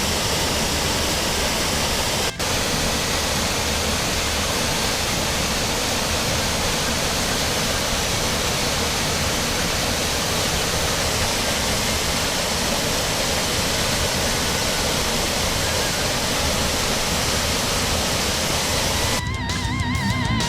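Waterfall: a steady rush of falling water, with one brief break about two seconds in. Electric guitar music comes in near the end.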